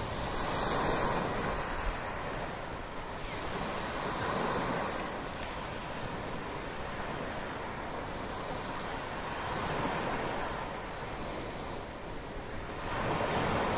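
Small waves washing onto a gravelly shore, the surf noise swelling and fading every few seconds, with wind buffeting the microphone.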